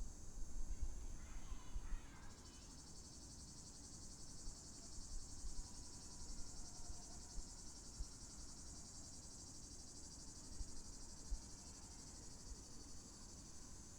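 Cicadas buzzing in a continuous high-pitched drone that grows louder about two seconds in. A few faint chirps sound in the first couple of seconds over a low rumble.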